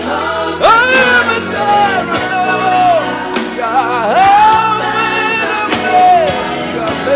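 Gospel worship song: singing with long held and sliding notes over a sustained band accompaniment.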